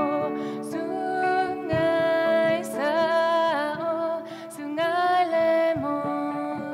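A woman singing a slow song to her own accompaniment on the sape', the plucked boat-shaped lute of Borneo. Steady held low notes run under sung phrases that swell and waver in pitch.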